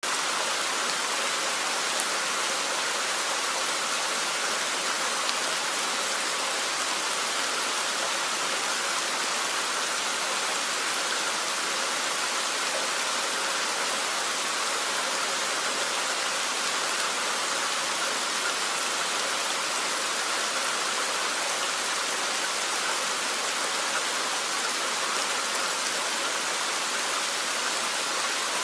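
Steady rain falling, an even hiss that holds level throughout, with a few faint drop ticks.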